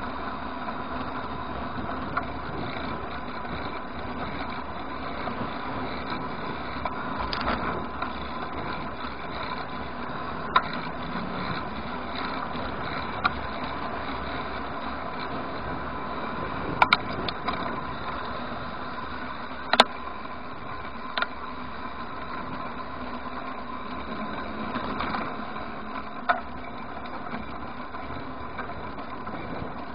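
Riding noise of a chromoly bicycle picked up by a handlebar-mounted camera: steady rolling and wind noise with scattered sharp clicks and knocks from the bike and mount jolting over bumps in the road.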